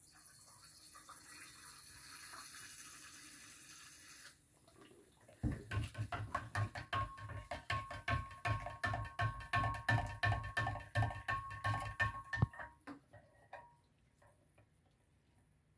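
For the first four seconds, soda solution hisses softly as it is squeezed from a bottle into a large glass jar of salt water. About five seconds in, a plastic spoon starts stirring the liquid briskly, knocking against the jar about three times a second so that the glass rings. The stirring stops a few seconds before the end; it mixes in the soda to raise the pH.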